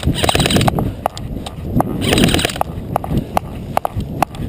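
Running footsteps with gear jostling: a rapid, uneven clatter of clicks and knocks like hoofbeats, with brief rustling near the start and again about two seconds in.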